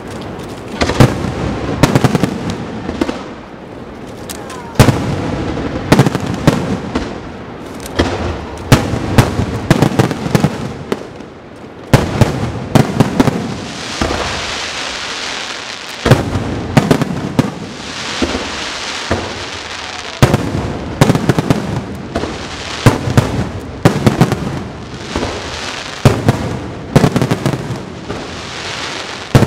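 Aerial fireworks display: shells bursting in quick, irregular succession as a string of sharp bangs, with stretches of crackling hiss from glittering stars between them.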